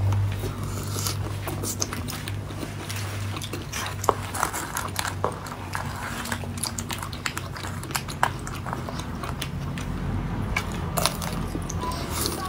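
Close-up eating sounds of a person biting into pink-coated strawberries and chewing: many small, sharp, crisp clicks and crunches scattered throughout.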